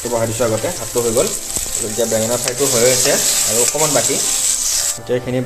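Brinjal pieces frying in hot oil in a steel kadai: a steady sizzling hiss that cuts off near the end.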